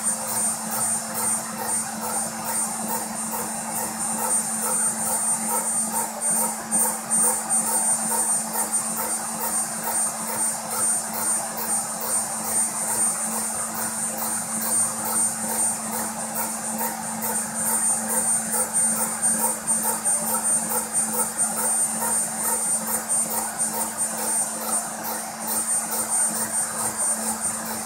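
Small DIY CNC router milling a copper-clad circuit board: the rotary-tool spindle runs at high speed with a steady high whine while its bit cuts isolation tracks, over a steady low hum and a fast, even pulsing rasp.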